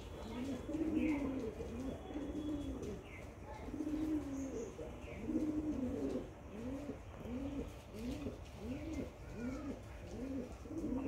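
Domestic pigeon cooing: low, arching coos, drawn out at first, then quickening in the second half into a regular series of short coos, about two a second.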